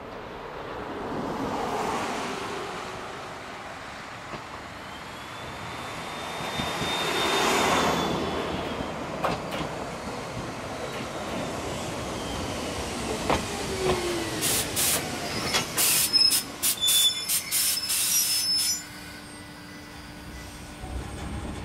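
Ichibata Electric Railway 2100 series electric train approaching and braking to a stop, with high wheel and brake squeals and sharp clicks as it draws in. Once it has stopped, a steady low hum comes from its underfloor equipment.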